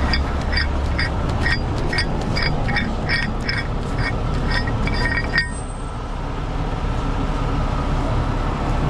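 Heavy truck's electronic warning beeper chirping rapidly, about two to three chirps a second, over a diesel engine running; the beeping stops suddenly about five seconds in, leaving the engine running.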